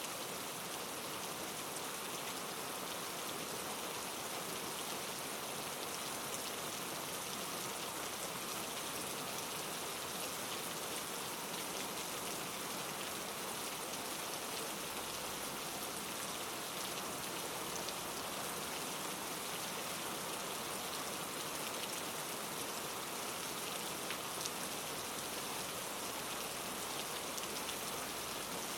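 Steady white-noise hiss with no change in level, its energy spread evenly and strongest in the upper range, with faint scattered ticks in it.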